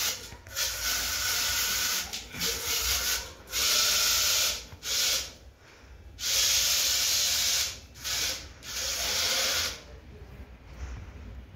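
Small robot car's 60 rpm DC gear motors running in stop-start bursts with a hissing whine as the robot follows a person's movements. The motors fall quiet near the end.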